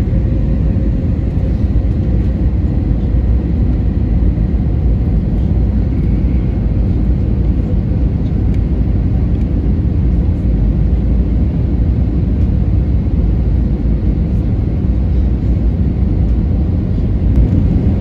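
Cabin noise of an Airbus A321neo: a steady low rumble that holds even throughout, with no distinct knocks or changes.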